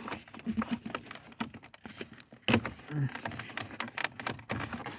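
Irregular clicks, knocks and rattles of hands working in a car's centre console around the OBD port, with a couple of brief muttered voice sounds.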